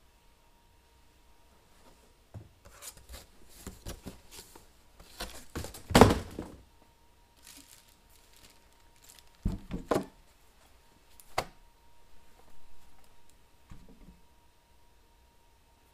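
Unboxing handling noises: cardboard and plastic packaging rustling and crinkling, with several knocks and thumps. The loudest thump comes about six seconds in.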